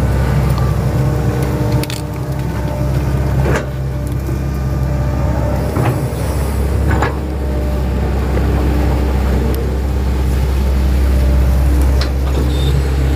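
Hitachi 110 excavator's diesel engine running steadily, with about six sharp knocks from the bucket digging at scattered moments.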